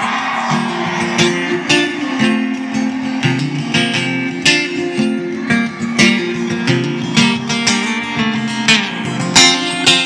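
Country song's strummed guitar intro, with no singing yet, playing loud through the four overhead speakers of an SSV Works UTV soundbar.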